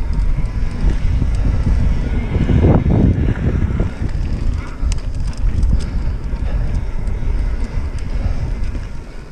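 Wind buffeting a chest-mounted action camera's microphone on a mountain bike descending dirt singletrack at speed, over the rumble of knobby tyres on the trail. The wind is loudest about three seconds in, and a few light clicks and rattles from the bike come through a little later.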